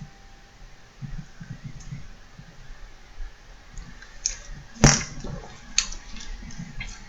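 A few soft low knocks and short clicks, the loudest a single sharp click about five seconds in.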